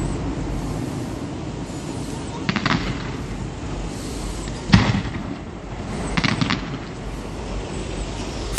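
Fireworks display: fans of gold comets firing, with two short bursts of rapid crackling about two and a half and six seconds in, a single sharp bang near five seconds, and a loud shell burst at the very end.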